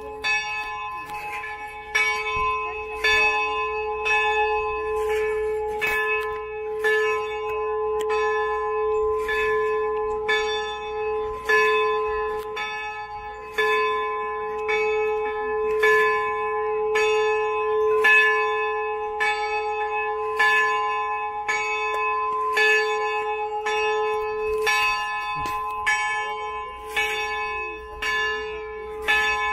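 Monastery church bell ringing, struck over and over in a steady, fairly quick series, with its main note ringing on unbroken beneath the strikes: the bell calling the faithful to Mass.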